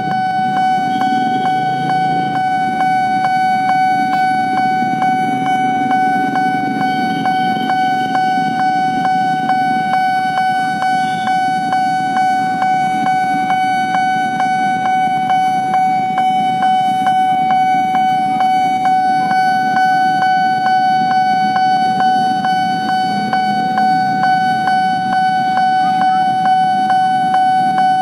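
Railway level-crossing warning bell ringing continuously in a fast, even repeat on one steady pitch, with road vehicle engines running underneath.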